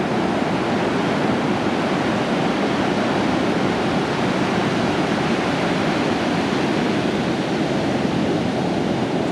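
Pacific surf washing over a sandy beach, a steady rush of water with no distinct breaks.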